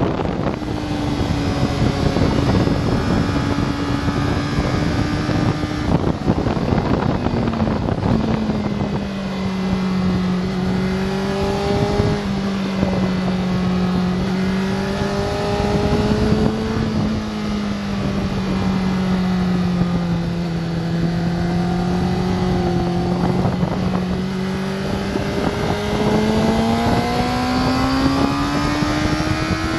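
Honda sport bike's engine heard from onboard over wind rush: the engine note drops as the bike brakes hard from high speed into a slow corner, holds low and steady through the turn, then rises steadily as the throttle opens on the exit near the end.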